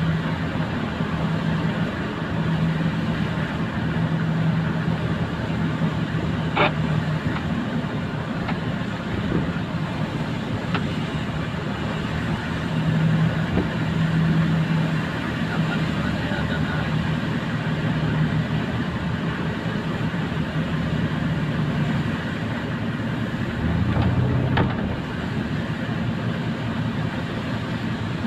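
Cabin noise of a car driving on a wet road: a steady low engine hum under tyre and road noise. The hum drops lower briefly near the end, and there are a couple of brief clicks.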